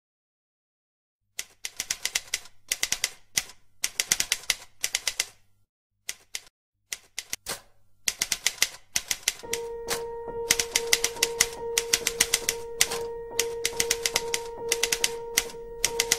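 Brother AX electronic typewriter printing: runs of rapid, sharp keystroke clatter broken by short pauses, starting after about a second of silence. From about nine seconds in, a sustained musical note comes in under the typing.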